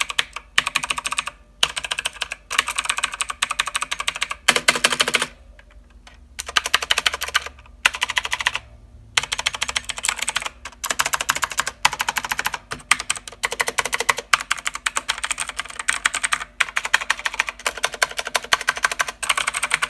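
Fast typing on a mechanical keyboard with clicky blue switches: dense, loud clacking in runs of a second or two with short pauses between them.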